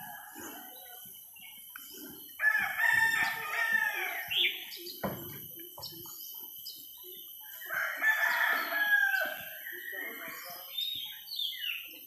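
A rooster crowing twice, each crow about two seconds long, with small birds chirping near the end.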